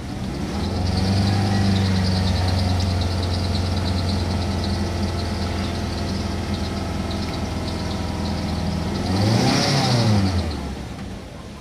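Mazda 6 engine running steadily at raised revs, then revved once about nine seconds in, its pitch rising and falling, before dropping back to a quieter idle near the end. The engine has just been restarted after sitting for about a month and is settling down to a normal idle.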